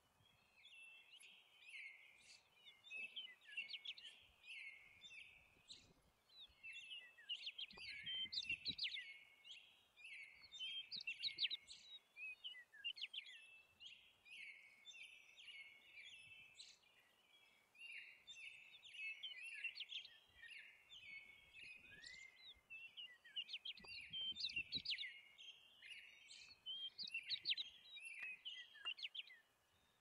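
Small birds chirping and chattering continuously, many quick high calls overlapping one another, with two brief low rumbles, about eight and twenty-four seconds in.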